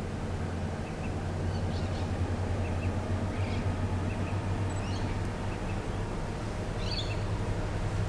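Low, steady drone of the NR, AN and DL class diesel locomotives on an approaching freight train, still in the distance, with a few bird chirps now and then.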